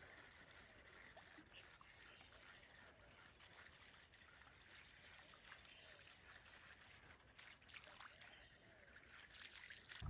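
Near silence: faint outdoor background noise with a few light clicks near the end.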